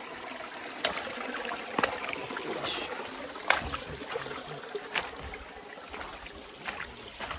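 Footsteps crunching through dry leaf litter and brushing past dry branches, with several sharp snaps of breaking twigs.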